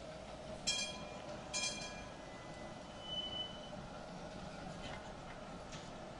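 Tram running slowly through a curve close by: a steady rumble of steel wheels on the rails, with a brief high squeal about three seconds in. Two short, loud, high calls cut through near the start.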